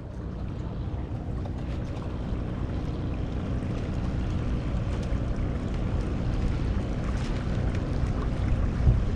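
A paraw, a Filipino outrigger sailboat, under sail: a steady rush of wind and water along the hull, with wind buffeting the microphone. A brief knock comes near the end.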